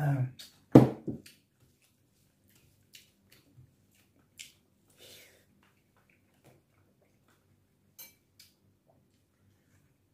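A glass mug set down on the table with a loud knock about a second in, followed by scattered faint clicks of eating.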